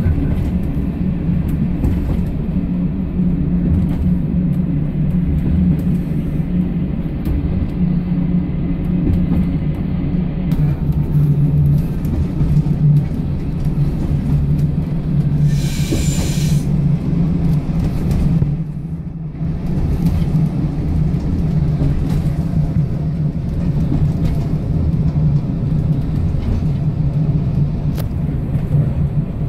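Class 115 diesel-mechanical multiple unit running along the line, heard from inside the driver's cab: a steady low engine drone with rumble from the wheels and track. About halfway through there is a short high-pitched burst, and a couple of seconds later the engine sound drops away briefly before picking up again.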